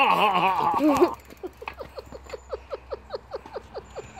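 A man's loud, warbling yell for about the first second, then a quick run of short, high, falling chirps, about five a second.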